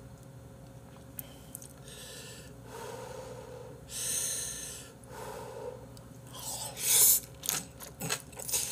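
A person slurping and chewing Sichuan Jjapagetti black-bean noodles: a hissing slurp about four seconds in, then wet smacking and clicking chews near the end.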